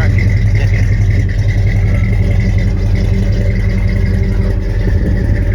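A 1971 car's engine idling steadily.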